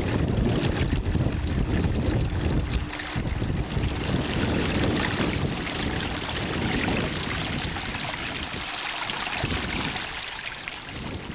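Steady outdoor rushing noise of wind and harbour water, with a faint steady hum under it.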